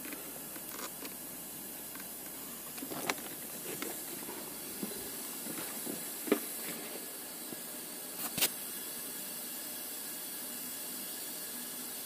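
A faint steady hiss, with a few light clicks about three, six and eight seconds in.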